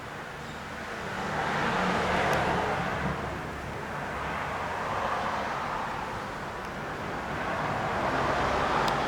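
Road traffic: cars passing, the tyre and engine noise swelling and fading twice.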